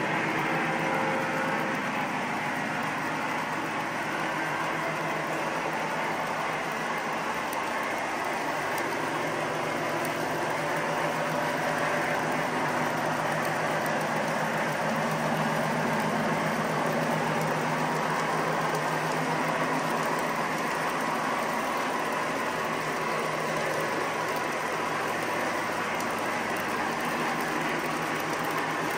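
A long O-gauge model freight train of hoppers and boxcars rolling past on three-rail track: a steady rumble and clatter of metal wheels on rail, with a low steady hum underneath.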